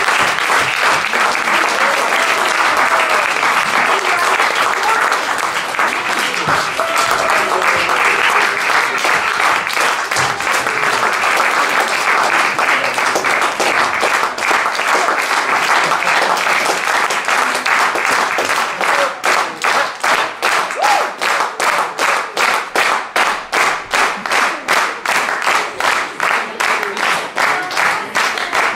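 Audience applauding in a hall. About two-thirds of the way through, the applause turns into rhythmic clapping in unison, about two claps a second.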